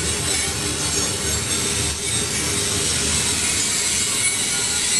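Freight train rolling past: a steady rumble of steel wheels on rails, with thin high-pitched wheel squeal over it.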